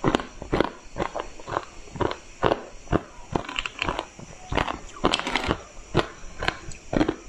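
Pieces of coloured ice crunched between the teeth, close to a clip-on microphone: a steady run of sharp crunches about two a second, with a denser spell of cracking about five seconds in.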